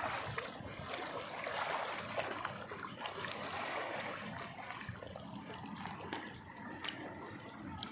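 Sea water lapping and splashing in a steady wash, with a few small splashes.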